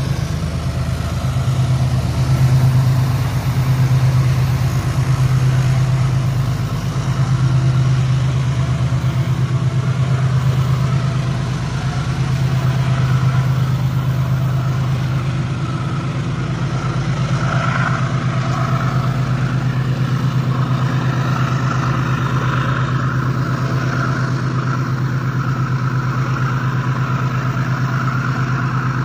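Diesel locomotive engine running steadily at low revs, a deep even hum that swells and eases slightly.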